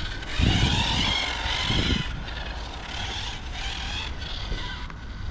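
Electric whine of a 1/10 RC short-course truck's 3800 kV brushless motor on 3S, rising and falling in pitch as the throttle is worked, with a few low rumbles.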